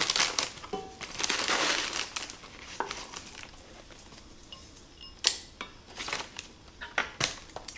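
Dry panko crumbs rustling as a measuring cup scoops and pours them. Several sharp clinks of a metal scoop against a skillet follow, mostly in the second half.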